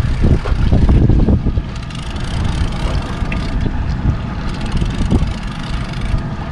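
Motorboat running on the water, a low rumble with wind on the microphone, loudest in the first second and a half.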